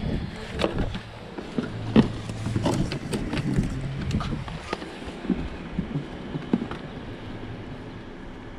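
Items being rummaged through in cardboard boxes: a string of short clicks and knocks as hard plastic VHS cases and other objects are picked up and knocked together, the sharpest about two seconds in. A low steady hum sits underneath for a few seconds.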